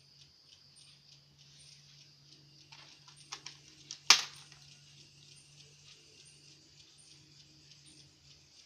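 Small laptop cooling fan running with a steady low hum and a faint hiss; the hum stops near the end. A few light clicks come about three seconds in, and a sharp click about four seconds in is the loudest sound.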